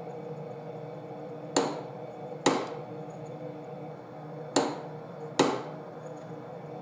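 Click-type (click-stop) torque wrench being pulled to its set torque: four sharp clicks in two pairs, the clicks of each pair a little under a second apart and the pairs about three seconds apart. The click is the wrench signalling that the set torque has been reached.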